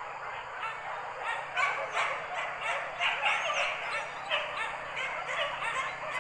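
A pack of boar-hunting dogs barking and yelping over one another, several barks a second, on the chase of a wild boar; the barking grows louder and denser about a second and a half in.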